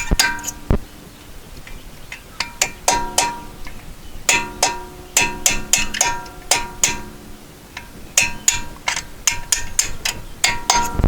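Hammer striking a punch on the pad retaining pins of a VW Touareg front brake caliper to knock them out. Many sharp metal-on-metal strikes come in irregular clusters of quick taps, each one ringing briefly.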